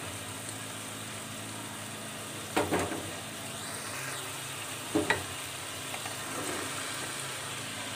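Diced potatoes in onion masala sizzling steadily in a metal pan. A brief clatter comes about two and a half seconds in, and another about five seconds in as diced carrots are tipped into the pan.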